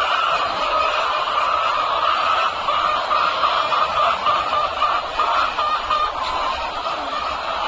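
A large flock of laying hens clucking and calling all at once, a dense, continuous chorus of overlapping calls.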